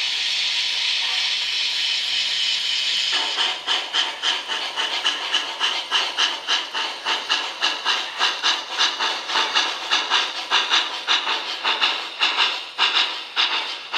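Digital sound system of an MTH HO-scale cab-forward steam locomotive model: a steady steam hiss, then about three seconds in the exhaust chuffs start, about three a second.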